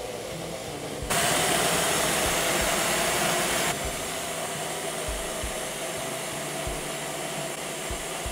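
Magic Bullet blender motor running as it purées a cup of cooked, watery tomato salsa. It gets louder about a second in and settles to a slightly lower steady running sound after a few seconds.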